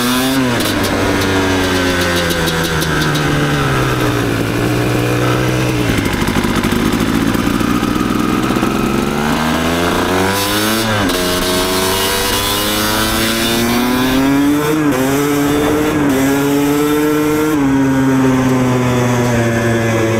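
2000 Kawasaki KX250's single-cylinder two-stroke engine being ridden, its revs climbing and then dropping back sharply several times as the bike accelerates and shifts up.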